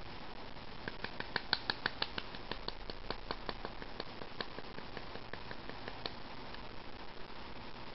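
An irregular run of light, sharp clicks with a slight metallic ring, several a second, densest about a second in and thinning out after about four seconds.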